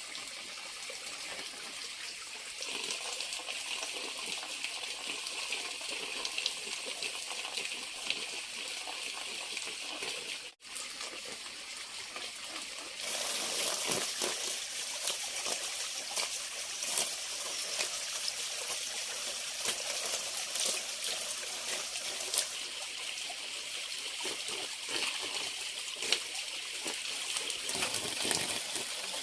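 Running water trickling and splashing steadily, cutting out for an instant about ten seconds in and coming back louder a few seconds later.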